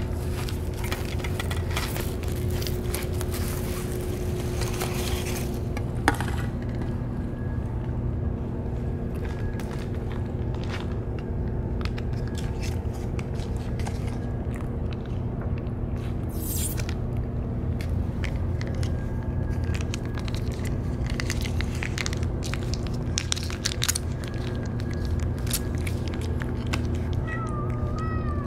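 Cat eating wet food from a stainless steel dish, with scattered small clicks of chewing, lapping and bowl contact over a steady low background hum. A cat meows once near the end.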